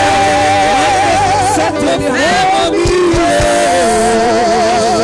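Slow worship music: long held melody notes wavering with vibrato over layered sustained chords and a steady low bass.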